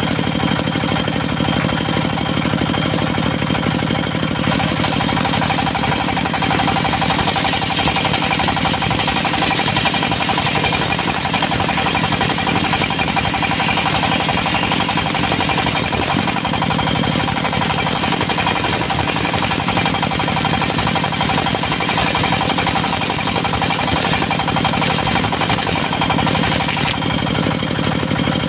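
Portable circular sawmill running steadily under its engine. The sound turns brighter and harsher from about four seconds in until near the end.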